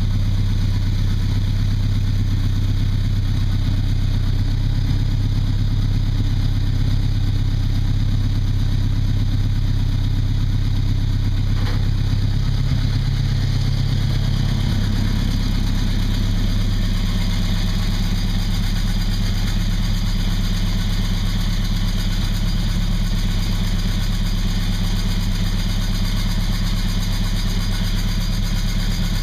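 Chevrolet V8 idling steadily while its rocker arms are being set with the engine running. About halfway through, the engine note shifts slightly.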